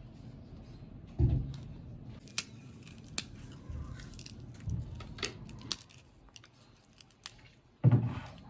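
Scattered sharp clicks and light scraping with a few dull thuds, about a second in and near the end: kitchen utensils and containers being handled while the chaat is prepared.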